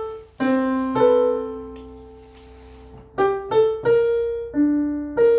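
Piano being played: a slow melody of struck notes, with a pair of notes held and fading for about two seconds near the start, then several quicker notes.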